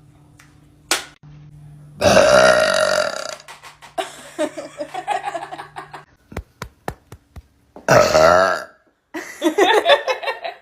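A woman burping loudly: a long, deep burp about two seconds in, another near eight seconds, and a shorter broken one just after it.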